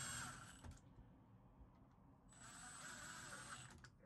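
A Milwaukee M12 Fuel cordless power ratchet runs in two short bursts, its motor whirring with a steady high whine, as it drives fasteners on a steering column. The first burst lasts under a second and the second about a second and a half.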